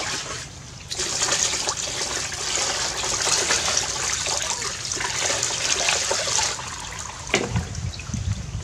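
Water poured from a plastic dipper over a small monkey, splashing into a plastic basin of water. The pouring starts about a second in and runs for about five seconds, then gives way to quieter splashing.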